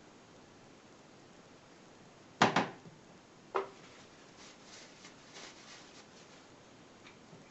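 Two sharp knocks, the first a quick double knock, as hard objects are set down or bumped, followed by faint light clatter and rustling of handling.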